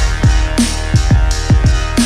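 Electronic dance music: a beat of deep kick drums that drop in pitch, several a second, over a steady bass line, with hi-hat hits on top.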